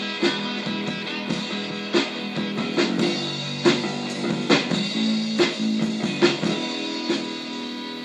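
Guitar-led music: plucked and strummed guitar notes over a sustained bass line, beginning to fade down near the end.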